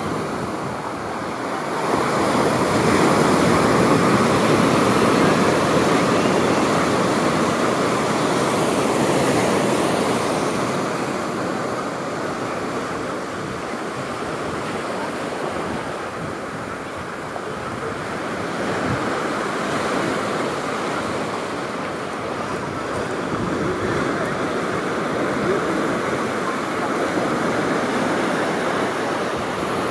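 Ocean surf breaking on a sandy beach, a continuous rushing wash that swells louder a couple of seconds in, eases off in the middle and builds again.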